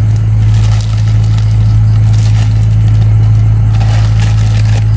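A loud, steady low hum like a motor running, with faint rustling and crunching over it.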